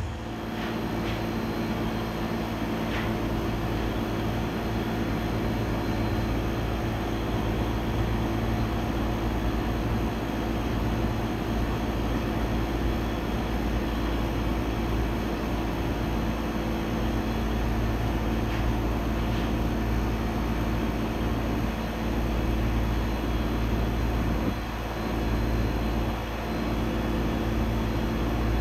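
Vacuum pump running steadily, drawing a vacuum through the investment flask on the vacuum casting table as molten aluminum is poured into it. It makes a constant drone with a low hum.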